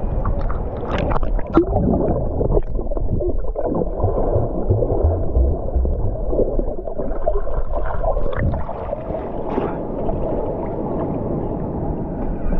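Sea water heard through an action camera dipping in and out of the surface: muffled sloshing and gurgling, with a few sharp clicks and splashes from a swimmer kicking underwater.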